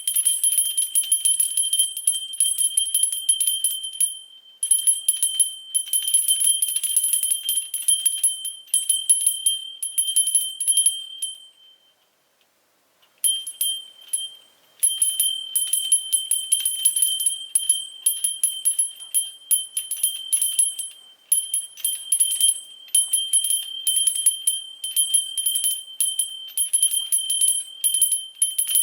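A small silver hand bell, about 4 cm across, shaken rapidly so its clapper strikes again and again, ringing high and bright. It falls silent for a second or so a little before halfway, with a few shorter lulls elsewhere.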